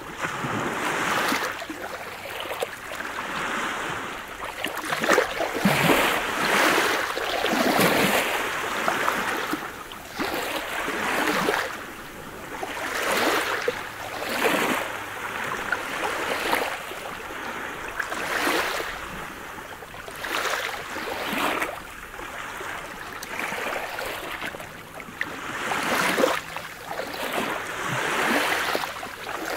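Small waves lapping onto a pebble beach: each wash comes as a surge of hiss with a crisp rattle of stones, every second or two, on a calm sea.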